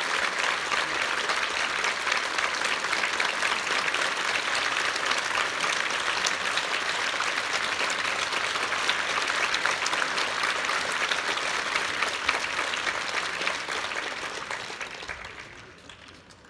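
Theatre audience applauding, a steady dense clapping that dies away over the last few seconds.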